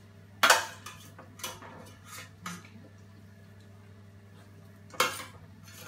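A metal spoon clanking against stainless-steel pans as roasted vegetables are scooped from a roasting tray into a soup pot. There are two loud clanks, about half a second in and near the end, with a few lighter knocks between, over a steady low hum.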